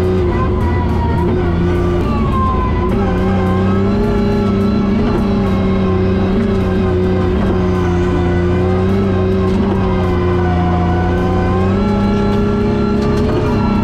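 Engine of an 850-horsepower, ethanol-fuelled professional drift car, heard from inside its stripped, caged cabin, running at a fairly steady moderate speed with small rises and dips in pitch.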